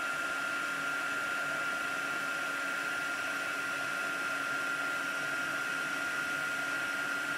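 Embossing heat gun blowing steadily: a fan rush with a steady high whine, as it melts gold embossing powder on a stamped card.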